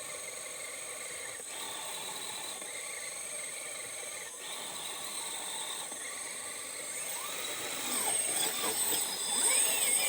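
Small electric motor of an RC rock crawler whining. Its pitch rises and falls with the throttle, and it grows louder in the last few seconds over a steady high-pitched buzz.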